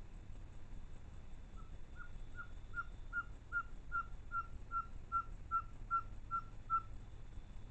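A bird calls a run of about fourteen short whistled notes on one pitch, evenly spaced at about two and a half a second. The notes start softly about one and a half seconds in, then hold steady until they stop near the end.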